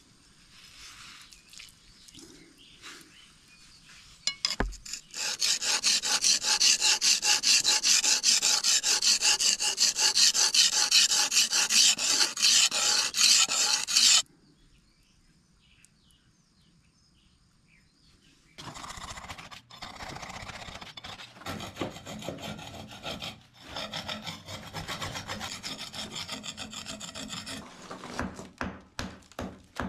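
A steel scraper blade being sharpened on a wet whetstone: quick, even back-and-forth rasping strokes of metal on stone. A pause follows, then a second, softer run of strokes. Near the end come a few sharp taps of a hammer knocking on wall tiles.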